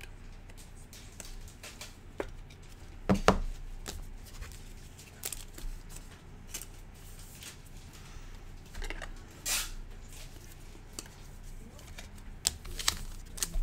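Light clicks and rustles of plastic card holders as a trading card is slid into a penny sleeve and a rigid top loader and handled, with one louder click about three seconds in.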